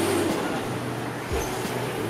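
Roadside street ambience: traffic passing, with faint voices mixed in.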